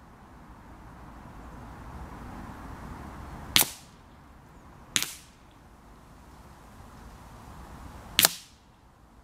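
Three single .22LR shots from a Ruger 10/22 semi-automatic rifle. The first two come about a second and a half apart and the third about three seconds later, each a sharp crack with a short tail. Under them runs a rushing noise that swells and fades.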